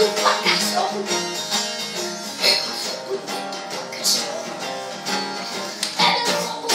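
A song playing, led by strummed acoustic guitar with a steady rhythm.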